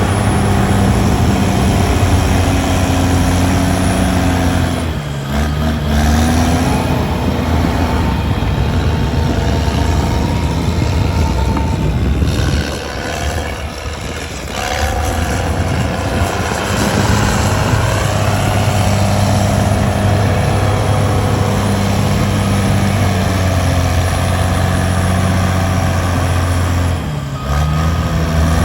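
Heavy diesel engine of earthmoving machinery running under load. Its pitch drops briefly and recovers about five seconds in and again near the end, and it eases off for a moment in between.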